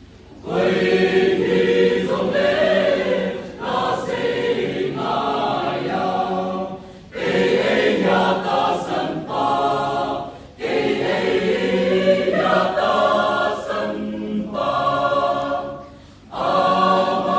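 Mixed choir of women and men singing a gospel hymn together in phrases, with short pauses for breath between them. The singing begins about half a second in.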